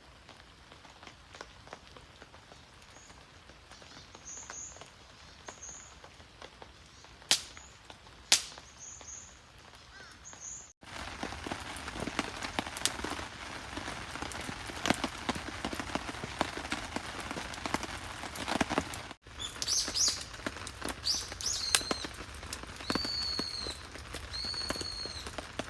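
Small birds chirping in short, high calls, some falling in pitch, over outdoor ambience. There are two sharp pops a few seconds in, and a dense crackling patter through the middle stretch.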